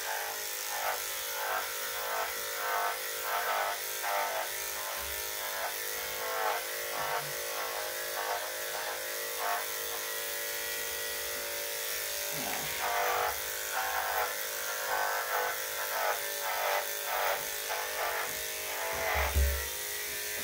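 Electric dog clippers running with a steady buzzing hum as the blade is pushed through a Cocker Spaniel's thick, curly coat, with short repeated swells in the sound about twice a second as the strokes pass through.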